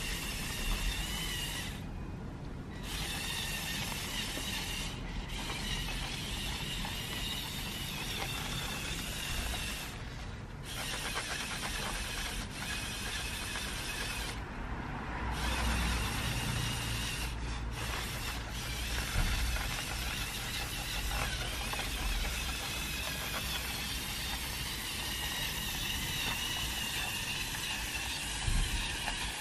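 Lego Technic Volvo L350F wheel loader's electric motors and gear train whining as it drives through snow, stopping and starting a few times.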